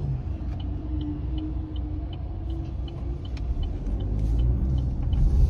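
Car cabin rumble of engine and road noise, growing louder near the end, with a light regular ticking about two or three times a second.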